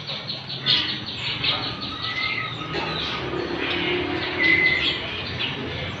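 Many caged songbirds chirping and calling at once, short chirps overlapping each other, with one clear whistled note about four and a half seconds in.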